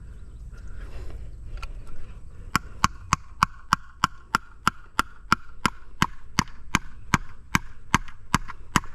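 Cordless drill driving a screw into a plastic wall anchor, the motor whining faintly, with sharp even clicks about three times a second from a couple of seconds in.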